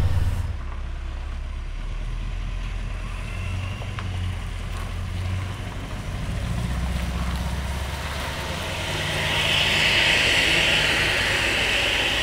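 Scania R530 V8 truck engine running as the truck manoeuvres, a low steady drone whose pitch steps up and down a few times. About three-quarters of the way in, a rushing hiss swells up over it.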